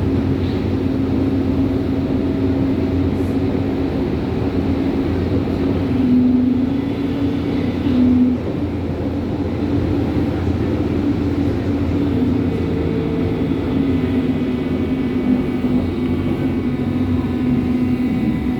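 Berlin U-Bahn train running, a steady loud rumble with a low hum. Near the end a faint motor whine shifts in pitch.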